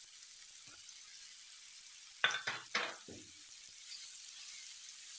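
Chicken breast pieces sizzling in oil in a frying pan as grated carrot is added and stirred in with a silicone spatula. A quick run of three or four knocks comes a little over two seconds in.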